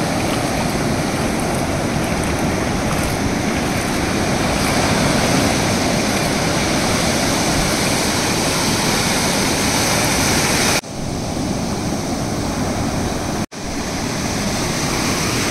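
Ocean surf breaking and washing through the shallows: a steady, loud rush of water, with two brief sudden dropouts near the end.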